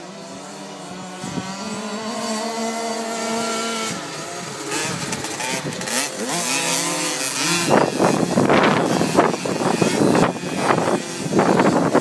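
Small two-stroke engine of a KTM 50 mini motocross bike, running steadily at first, then revving up and down. From about eight seconds in, loud irregular gusts of noise cover the engine.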